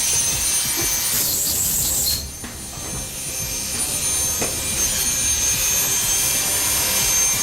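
Oster A5 Turbo two-speed hair clipper's motor running with a steady high whine, freshly repaired with its field and armature reseated so they no longer rub. A brief rasping noise comes about a second in, then the sound drops and builds back up.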